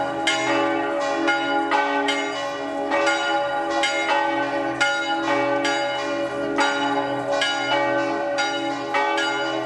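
Church bells in a stone bell tower ringing a rapid peal, about two or three strokes a second, each tone still ringing when the next stroke comes.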